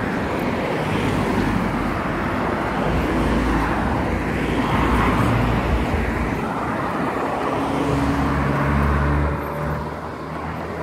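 Road traffic: cars driving past close by with a steady rumble of engines and tyres on the road. For a few seconds near the end, one engine's hum stands out.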